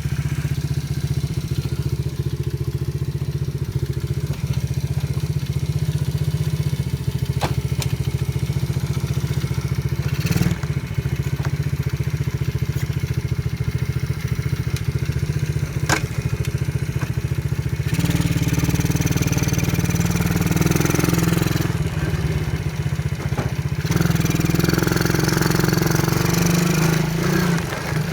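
125cc ATV's single-cylinder engine running steadily at idle, with a few light clicks. It gets louder and fuller twice in the last third, for a few seconds each time.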